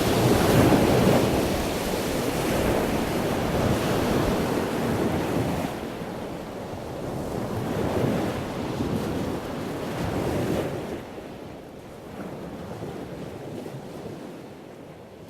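Wind buffeting the microphone over the rush of sea water, a steady noise that drops in level about halfway through and fades out near the end.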